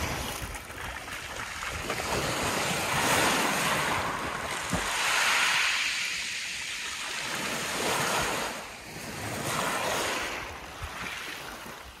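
Sea water sloshing and splashing around a person wading and swimming into a calm sea, with louder splashing about three seconds in and again around five to six seconds. Wind buffets the microphone.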